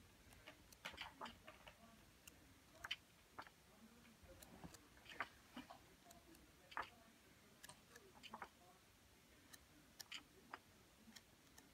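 Near silence with a scatter of faint, irregular clicks and soft rustles from the paper pages of a colouring book being handled and turned.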